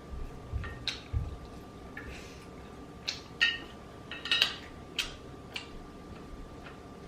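Close-up eating sounds: irregular short chewing and slurping noises while eating spicy rice cakes and instant noodles, with light clicks of utensils against the bowl, over a faint steady high hum.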